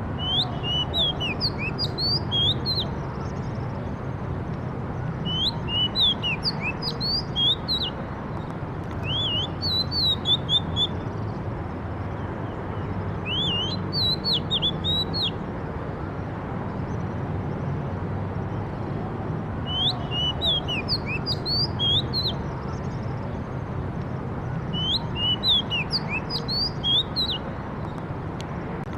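A songbird singing short phrases of quick up-and-down notes, about six phrases a few seconds apart, over a steady low background rumble.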